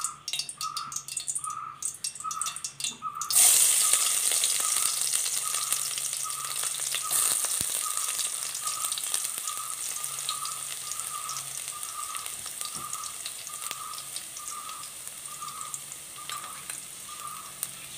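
Crushed ginger and garlic hitting hot coconut oil in a pan: a sudden loud sizzle about three seconds in that slowly dies down into a steady frying hiss. A faint repeated tone, about two a second, runs underneath.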